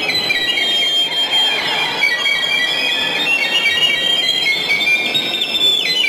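Mariachi band playing, with violins and trumpets carrying high held melody notes that change pitch near the end.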